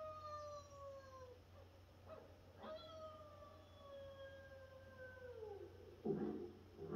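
Cartoon dogs on a film soundtrack played through a TV: two long howls, each sliding slowly down in pitch, then two short barks near the end.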